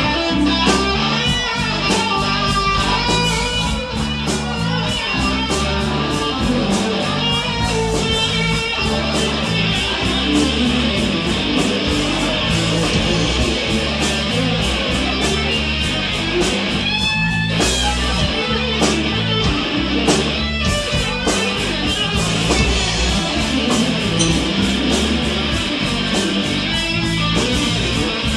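Live rock band playing an instrumental passage, guitars to the fore over a steady beat.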